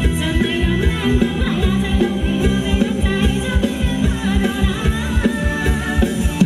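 Live band playing ramwong dance music over a loud sound system, with a singer and a steady drum beat.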